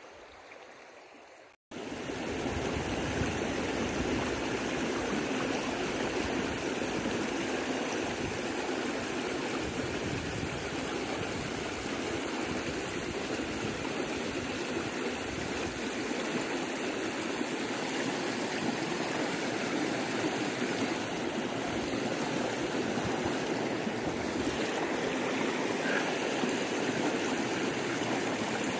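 Mountain stream running over rocks: a steady rush of flowing water that starts abruptly after a moment of near silence, under two seconds in.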